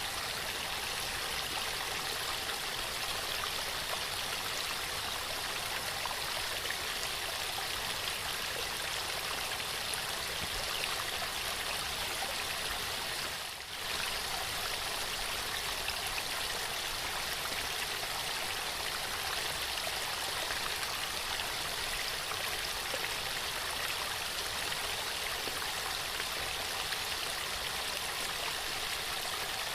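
Waterfall rushing steadily, an even hiss of falling water, with a brief dip in level about halfway through.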